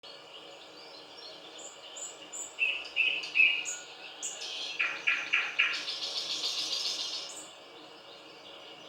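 A nightingale singing one song phrase. It opens with short repeated whistled notes, first high and then lower, moves to four loud strokes, and ends in a fast rattling trill that stops about seven and a half seconds in.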